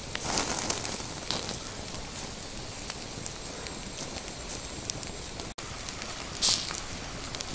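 Open wood fire crackling and hissing, with scattered small pops. About five and a half seconds in the sound cuts off abruptly, giving way to a steady hiss with one short rustling burst.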